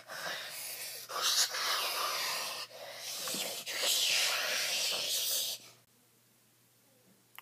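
A person making long, breathy hissing noises with the mouth, in about four drawn-out stretches, stopping about five and a half seconds in.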